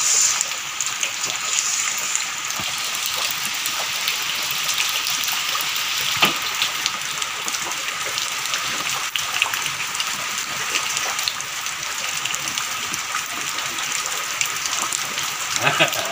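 Steady rain falling, a continuous hiss of water, with one short knock about six seconds in.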